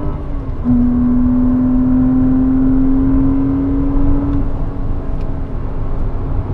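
Porsche Cayman 987's mid-mounted flat-six engine heard from inside the cabin at track speed. Its note dips briefly about half a second in, as on an upshift, then climbs steadily under acceleration for about four seconds before dropping away as the throttle comes off, over constant tyre and wind rumble.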